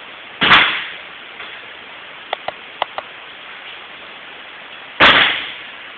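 Two loud slaps of a judoka being thrown onto tatami mats and breaking the fall, about five seconds apart, each dying away with a short echo, over a steady hiss. A few light taps in between.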